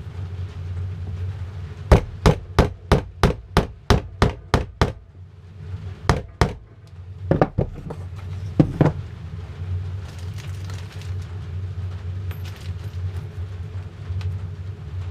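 A hammer driving nails by hand into a wooden beehive frame. A quick run of about a dozen sharp taps comes at roughly three a second, then a few shorter groups of two or three taps.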